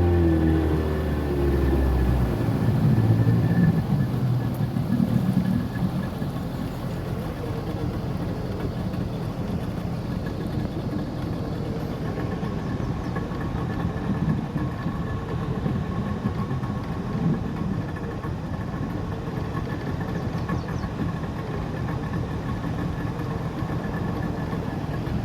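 An engine running. Its pitch glides and falls over the first couple of seconds, then it settles into a steady hum.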